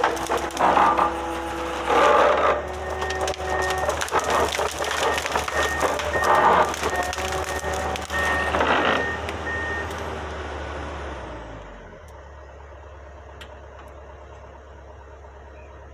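Tracked excavator-based forestry harvester travelling: diesel engine and hydraulics working hard, with loud crunching bursts over brush and a travel alarm beeping steadily. About twelve seconds in, the engine drops to a low idle.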